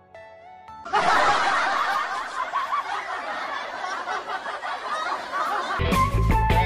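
Several people laughing together, like a laugh track, for about five seconds. Near the end a rock tune with electric guitar and drums starts.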